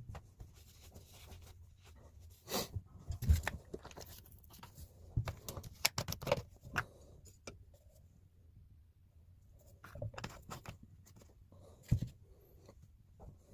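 Irregular knocks, clicks and rubbing from hands handling tools and materials on a workbench, with a quiet gap in the middle and two sharper knocks standing out.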